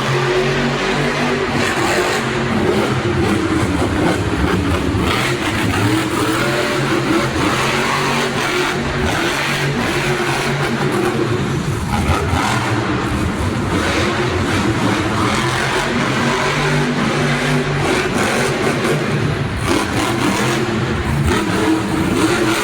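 Monster truck engine revving hard and loud, its pitch rising and falling again and again through the run.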